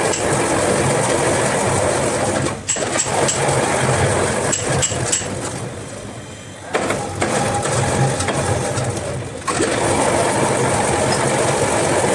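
A motor-driven workshop machine running with a steady mechanical rattle and throb. It eases off briefly a few times and picks up again.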